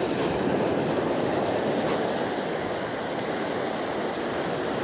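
Small sea waves breaking and washing over a pebble shore: a steady rush of surf.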